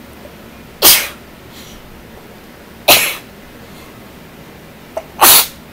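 A woman sneezing three times, each a sudden loud burst, about two seconds apart.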